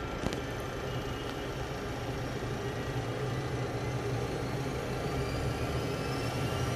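ATR 72-500's Pratt & Whitney PW127 turboprop running steadily in hotel mode with the propeller locked by the propeller brake, heard inside the cockpit as the engine settles after start. A low hum sits under a faint whine that rises slowly in pitch through the second half.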